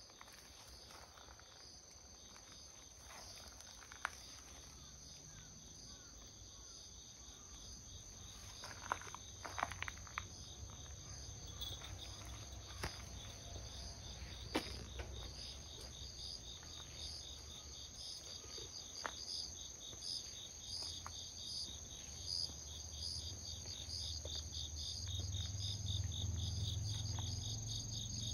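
A steady, high-pitched chorus of insects shrilling with a regular pulse. Scattered sharp clicks and crackles break in, most of them around the middle, and a low rumble grows near the end.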